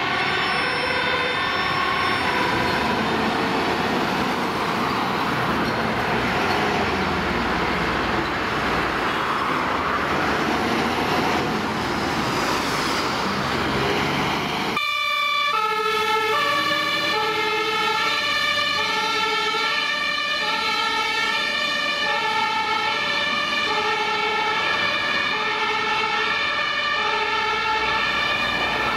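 Fire engine's two-tone siren alternating high and low about once a second. For roughly the first half the DAF LF ladder truck's diesel engine is loud as it pulls out, largely covering the siren; about halfway in the sound cuts off suddenly to the siren alone, clear and steady.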